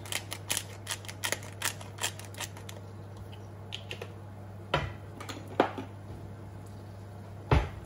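Hand-held pepper grinder grinding white peppercorns: a quick run of dry clicks over the first two to three seconds. A few louder knocks follow later, the loudest near the end, over a steady low hum.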